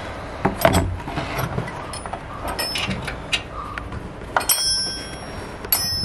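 Metal tools and fittings clinking and knocking as a refrigeration unit is worked loose, scattered single knocks with two bright, ringing metallic clinks in the second half.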